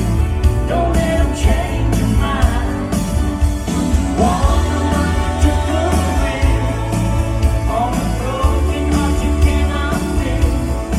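A live pop-country band playing with a singer's voice on top: drum hits, a heavy bass line, and a sung melody that glides up and down.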